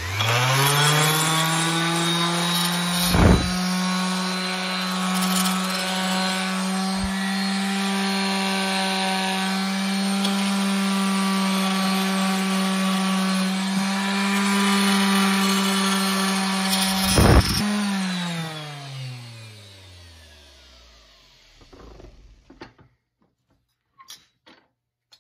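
Bosch random orbit sander switched on, running at a steady whine while sanding a small molded HDPE plastic piece held in a vise, with two sharp knocks, one a few seconds in and one just before it stops. It is switched off and winds down over a few seconds, followed by faint handling.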